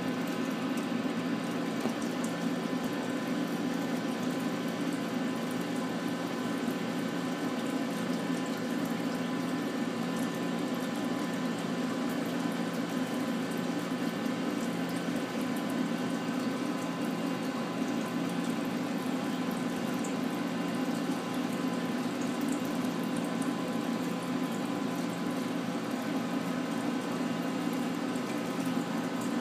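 Touch tank's water pump and circulating water running steadily: an even hum under a wash of moving water, unchanging throughout.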